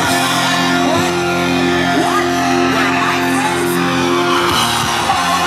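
Loud live music over a festival sound system: a long sustained chord over a low bass.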